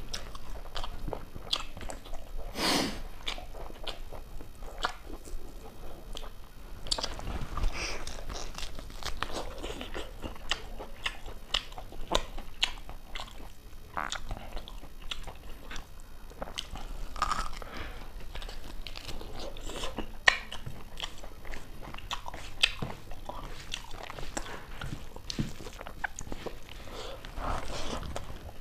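Close-up mukbang eating sounds: a person chewing mouthfuls of pork curry and rice, with crunching bites and many irregular mouth clicks. There is a longer noisy burst about three seconds in.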